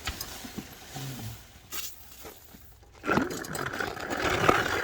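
A few faint handling clicks, then about three seconds in a cordless impact driver starts and runs steadily on the mower blade bolt, with a steady high whine.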